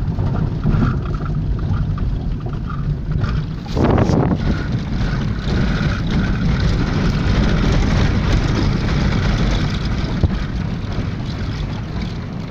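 Car driving along a rough dirt road, heard from inside the cabin: a steady rumble of engine and tyres on the dirt. About four seconds in there is a brief, louder rushing noise.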